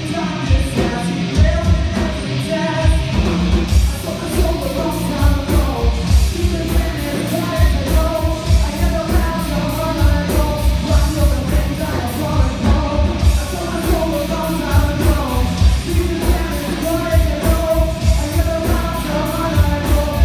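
Live rock band playing loudly, a vocalist singing over a steady, driving beat of drums, cymbals and bass.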